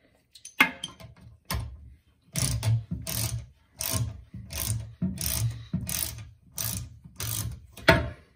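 Socket ratchet wrench clicking in short, evenly paced strokes, about eleven in a row, as it tightens a toilet seat's mounting bolt that is nearly tight.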